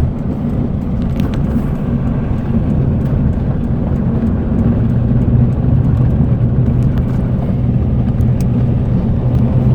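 Steady low drone of a car's engine and road noise heard from inside the moving vehicle, growing a little louder about halfway through.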